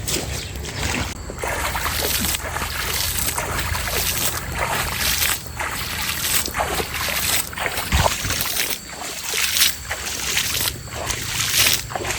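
Water sloshing and splashing in a stream, with a steady rush broken by many irregular splashes.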